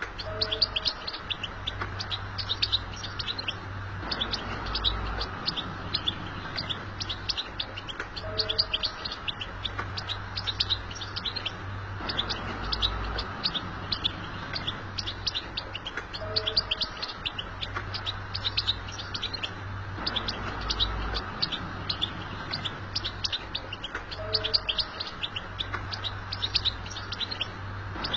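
European goldfinch twittering: a steady stream of rapid, high chirps and trills with no breaks. The same stretch of song seems to come round again about every eight seconds, over a low hum.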